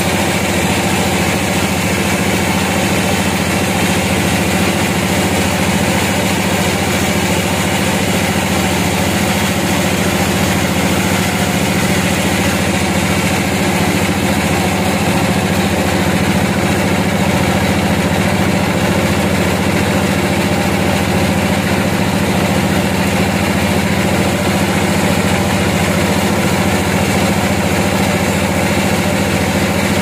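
Band sawmill running steadily as its blade saws lengthwise through a large log: an even machine hum of layered pitches that holds at the same level throughout.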